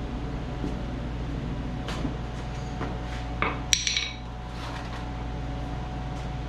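A few irregular light metallic taps and clinks on the steel cam bearing installer tool in a small-block Chevy block, the loudest about three and a half seconds in with a short ring, over a steady low hum.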